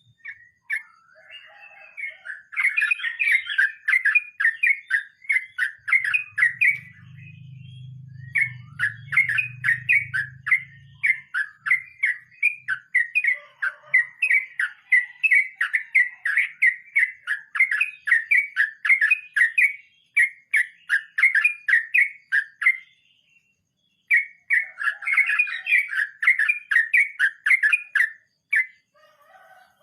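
Yellow-vented bulbul (trucukan) singing a long, continuous run of rapid repeated chirping notes, about three a second, with a short break near the end. A low hum sounds under the song for a few seconds in the first third.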